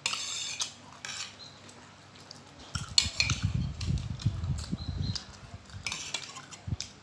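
Forks and spoons scraping and clinking on ceramic plates as noodles are stirred and twirled. A stretch of dull low thumps runs through the middle.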